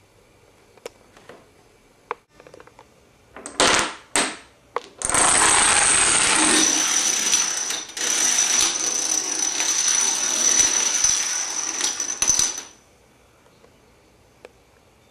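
Dominoes toppling in a long chain: a few scattered clicks, two short bursts of clatter, then a dense, rapid clatter for about seven seconds that cuts off abruptly.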